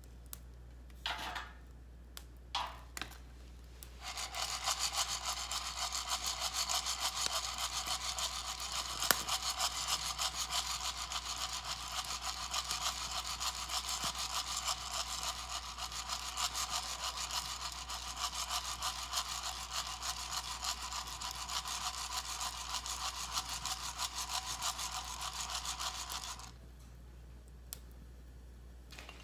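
Fast, steady rasping, like grinding or sawing, that starts about four seconds in and stops abruptly near the end, after about twenty seconds; a few separate clicks come before it.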